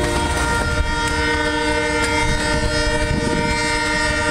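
Multi-chime locomotive air horn on ex-CSX SD60M 8784, sounding one long held blast, a chord of several notes that comes in at the start and does not let up. Under it is the low rumble of the freight train's tank cars rolling past.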